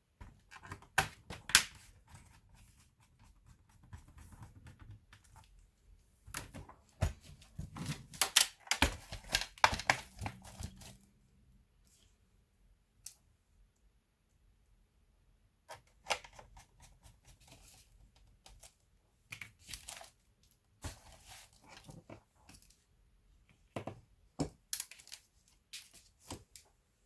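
Hands working on an Asus X54C laptop: irregular clicks, taps and short scraping or rustling sounds of small plastic and metal parts being handled, in bursts with a quieter pause about halfway through.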